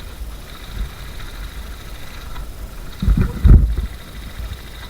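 Low rumbling noise on a body-worn camera microphone, with two louder low thumps about three seconds in.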